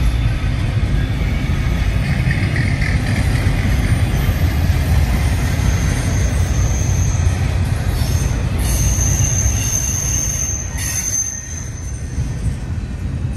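Loaded freight-train well cars rolling past close by, their steel wheels giving a steady low rumble on the rails. A high wheel squeal comes in briefly about six seconds in and again, louder, from about nine to eleven seconds.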